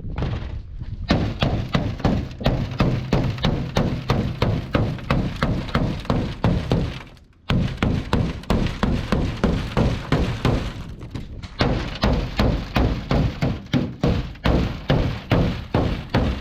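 Rapid, repeated striking blows on a hard material, about three to four a second, with a short pause about seven seconds in.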